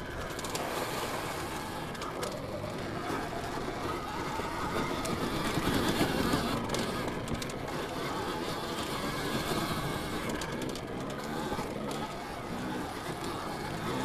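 Alta Redshift MXR electric dirt bike being ridden, its drive chain clattering and whining over tyre noise on a dirt trail, with a louder stretch about six seconds in.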